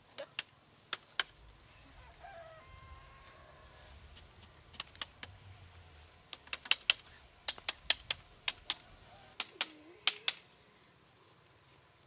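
Sharp taps of a hand tool striking a bamboo lattice panel, in irregular groups: a few in the first second, then a denser, louder run in the second half.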